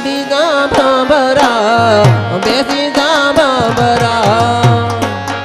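Amplified Gujarati folk-devotional singing: one voice drawing out an ornamented melody through a microphone, accompanied by tabla and dholak, whose deep strokes come in steadily about two seconds in.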